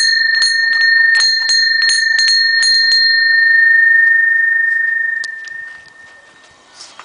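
Small rusty cast-iron wall bell rung quickly by tugging the rope on its clapper, about three strikes a second, each with one clear high ring. The strikes stop about three seconds in and the ring dies away over the next two seconds.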